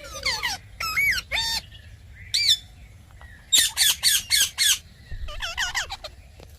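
Psittacula parrots (Indian ringneck and Alexandrine type) squawking and screeching in short, harsh calls that bend in pitch. About halfway through comes a run of four rapid loud screeches, followed by a softer chattering cluster of calls.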